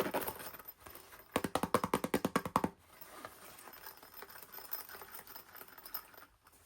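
Hands handling toy packaging: a quick run of rapid clicks lasting about a second, a bit over a second in, then faint handling noise.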